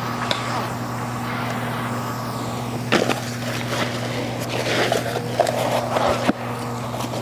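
Rubber pond liner rustling and scraping as it is pushed into the gaps between wooden pallets, with a sharp knock about three seconds in. A wheelbarrow rolls up with a rumbling scrape shortly before the end. A steady low hum runs underneath throughout.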